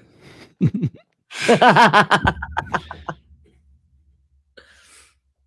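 People laughing: a short laugh, then a louder burst of laughter about a second and a half in that breaks into quick pulses and trails off, with a faint breath near the end.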